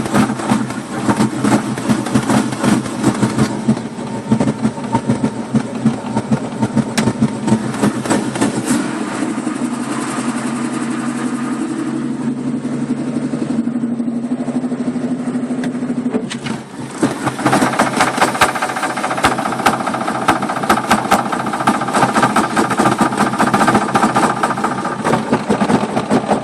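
1965 Ford Mustang engine on a 2150 two-barrel carburettor idling roughly, its firing uneven and unsteady. About two-thirds through the sound dips briefly, then comes back fuller and brighter.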